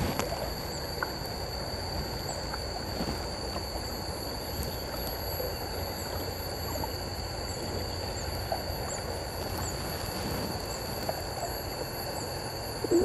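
River water running and gurgling around a kayak, a steady moderate wash of water noise. Over it a steady high-pitched whine holds throughout, and short high chirps repeat every second or so.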